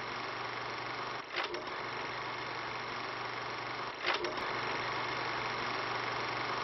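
Film projector running: a steady mechanical whir with a low hum, broken by a short clatter twice, about a second and a half in and again near four seconds.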